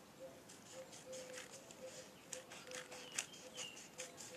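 Scissors cutting through a folded sheet of paper: a series of faint, irregular crisp snips.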